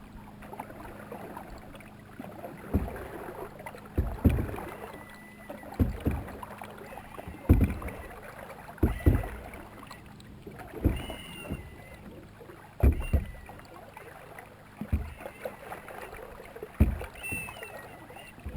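Canoe paddling: a paddle dipping and pulling through the water about every one and a half to two seconds, each stroke a short dull splash, some of them doubled.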